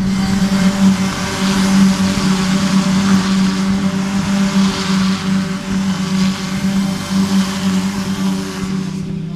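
A pack of Renault Clio Cup race cars passing at a steady pace, their engines making a loud, even drone over the rush of the cars going by. The sound cuts off abruptly near the end.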